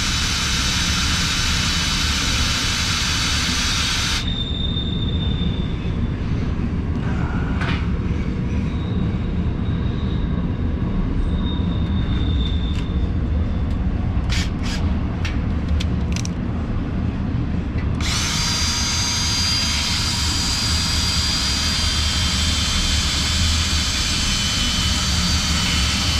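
Electric drill running with a freshly sharpened twist bit cutting into thick steel. The cutting is harsh and loud for the first four seconds and again from about eighteen seconds on. In between it drops to a quieter run with a thin high squeal and a few clicks.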